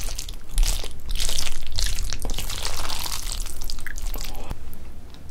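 Wooden chopsticks stirring and lifting sauce-coated Chapagetti (instant jjajang noodles) in a bowl: a dense, wet squishing with many small clicks, loudest in the middle and fading near the end.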